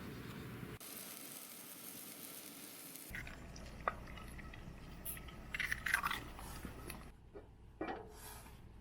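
Camp breakfast cooking in a pan: a steady high sizzle for about two seconds, then a few light clicks and scrapes of a utensil against the pan.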